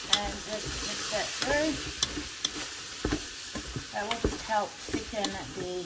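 Floured chicken pieces sizzling as they brown in an electric pressure cooker's inner pot, while a spatula stirs them and scrapes the pot bottom with short knocks.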